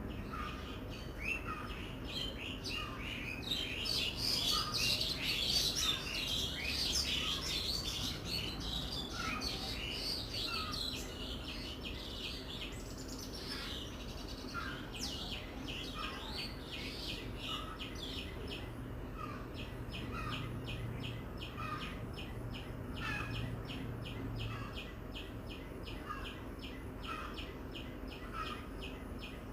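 Birds chirping outdoors: one short call repeats about every second and a half, with busy twittering in the first half and a fast series of high ticks in the second half.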